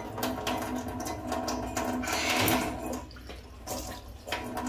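Water running from an alkaline water ionizer's outlet into a glass while the machine hums steadily. It is dispensing its acidic dish-washing water. The hum drops out for about half a second near the end, then returns.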